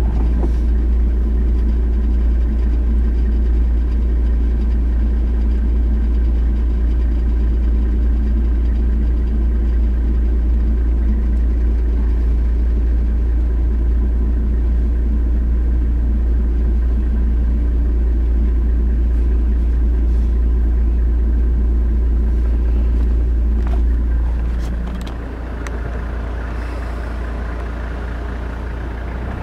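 Engine of a safari vehicle running steadily at low revs, heard from on board as a loud, deep rumble. About 25 s in, the deep rumble drops away and it goes quieter.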